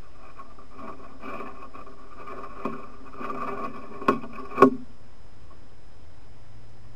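A bear rubbing and scraping against a trail camera at close range, for about four seconds, ending in two sharp knocks on the housing about four seconds in, the second the louder.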